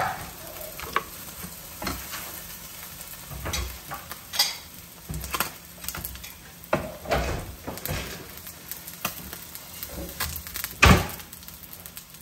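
Wooden spoon stirring and scraping in a pan of sizzling sauce, with scattered light knocks and one louder, sharper knock near the end.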